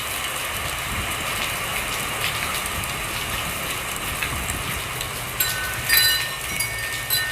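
Steady hiss of wind and light drizzle, with wind rumbling on the microphone. From about five and a half seconds in, a wind chime rings, with a few clinks and lingering high tones.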